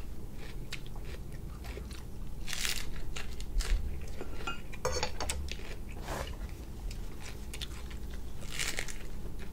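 Close-up sounds of biting and chewing grilled cuttlefish: a string of short, irregular mouth noises and clicks.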